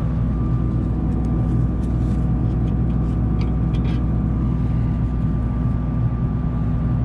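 Claas Lexion 670 combine harvester's diesel engine running steadily at constant speed, with a few faint light clicks in the first few seconds.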